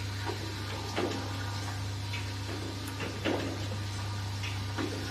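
Automatic bamboo clothespin spring assembling machine running: a steady low hum from its vibratory bowl feeders, with a sharp clack from the assembly head roughly once a second as it works through its cycle.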